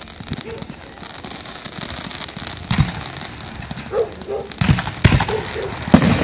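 Fireworks display going off: a steady crackle of bursting shells, with four sharp booms in the second half, the loudest near the end.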